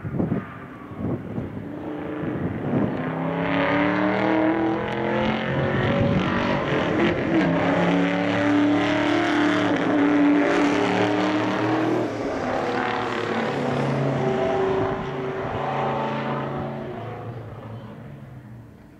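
Classic muscle car running at full throttle, its engine pitch climbing in several steps as it shifts up through the gears. It grows louder as it approaches and passes, then fades away.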